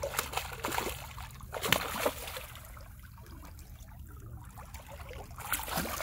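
Water splashing as a hooked barred knifejaw (ishidai) thrashes at the surface in the first two seconds, then more splashing near the end as a landing net is scooped under it. A low steady hum runs underneath.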